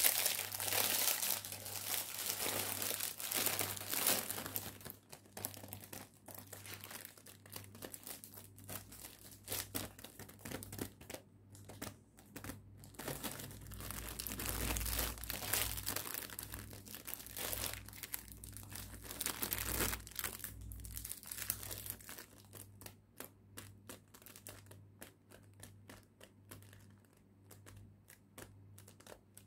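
Plastic wrapping of a pack of biscuits crinkling and rustling as hands handle and unwrap it, loudest in the first few seconds and again midway. It thins to scattered light crackles and taps on the clear cellophane near the end.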